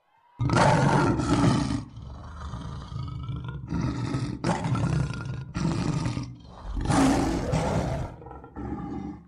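Big cat roaring, a run of rough roars each about a second long, starting suddenly about half a second in.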